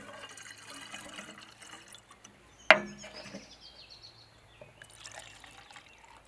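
Water poured from a plastic graduated cup into a glass bottle, then a single sharp knock about two and a half seconds in, then water poured from a glass bottle into the plastic cup, filling it.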